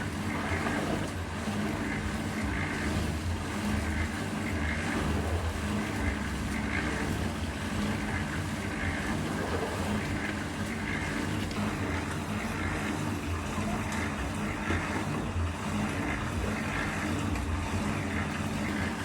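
Heavy engine running steadily at a constant speed, with a low, even hum throughout.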